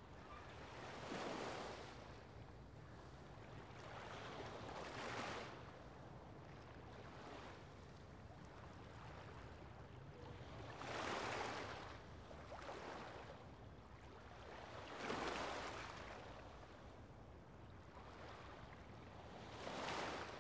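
Small waves washing up onto a pebble shore: soft swells of surf rising and falling about six times, a few seconds apart, over a faint steady low rumble of wind.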